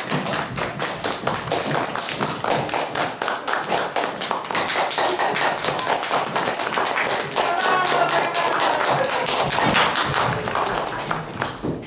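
Audience applauding, a dense patter of hand claps, with a few voices calling out about two-thirds of the way in.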